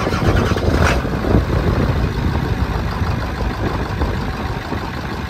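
Ford 7.3 L Power Stroke V8 turbo-diesel in a 1997 OBS Ford truck firing up: a loud burst over about the first second as it catches, then a steady idle with the typical 7.3 clatter.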